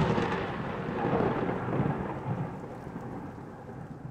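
Thunder rumbling over steady rain, a storm sound effect, slowly fading away.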